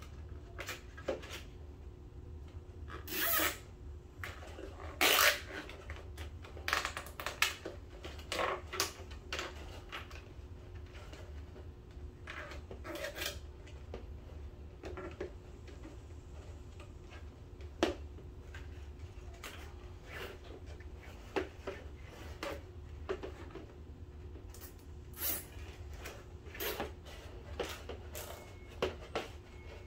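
Black flexible plastic edging strip being handled and bent by hand: irregular scrapes, rustles and clicks, some louder ones about 3 and 5 seconds in, over a low steady hum.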